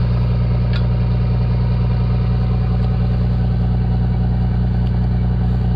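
Heavy wrecker's diesel engine idling steadily close by.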